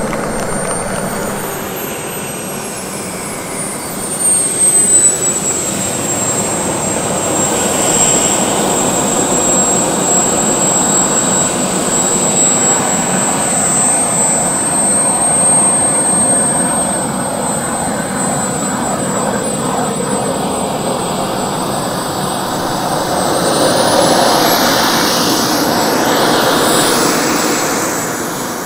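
Model turbine, a JetCat P300, of a large-scale RC F-104 Starfighter jet running at low power while it taxis: a high-pitched whine over a steady rush. The whine falls in pitch about five seconds in, holds steady, and rises again about twenty-three seconds in as the throttle is opened.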